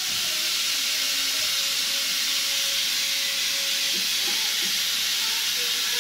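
Pressure cooker on a gas burner hissing steadily as steam escapes at its weight valve while it comes up to pressure.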